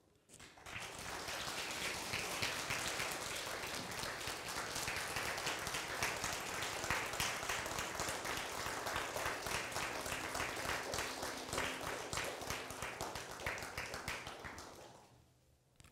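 Audience applauding, many hands clapping together. It starts about half a second in and dies away near the end.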